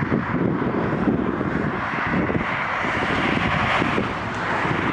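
Strong gusty inflow wind buffeting the microphone: an irregular low rumbling under a steady rush that swells about two and a half seconds in.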